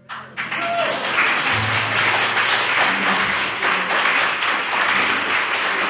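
Audience applause after a live jazz song, breaking out suddenly and then continuing as steady clapping.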